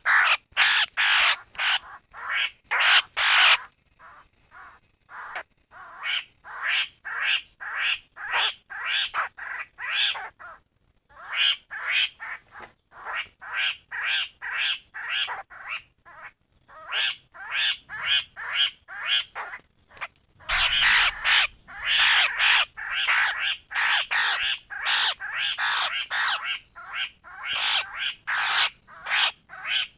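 Laughingthrush (khướu) giving its 'kíu' call in quick series of short calls, about two a second, in runs broken by short pauses. This is a lure call made to be played from a bird-trapping speaker.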